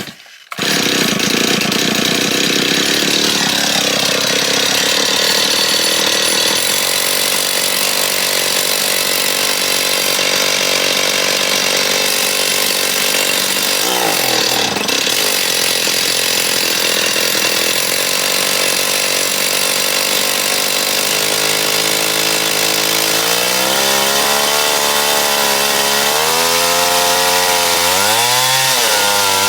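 Two-stroke chainsaw engine catching about half a second in and then running continuously. Over the last several seconds the revs rise and fall repeatedly.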